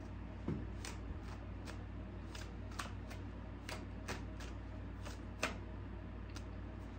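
A deck of tarot cards being shuffled by hand, an overhand shuffle: a run of irregular, sharp card slaps and snaps, roughly two a second, over a steady low hum.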